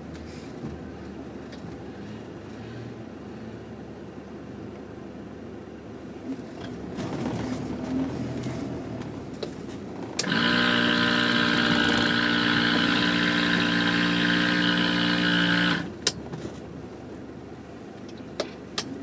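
Off-road 4x4 engines running in deep snow, then a loud, steady vehicle horn held for about five seconds, starting and stopping abruptly about ten seconds in, and a single sharp knock just after it.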